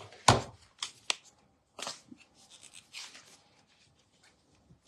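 A few sharp plastic clicks followed by soft rustling as a lip gloss tube is opened and handled, the loudest click about a third of a second in.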